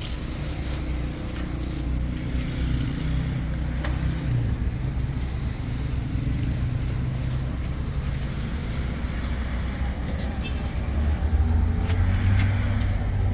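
Steady low rumble of motor vehicle traffic, growing louder near the end, with voices in the background.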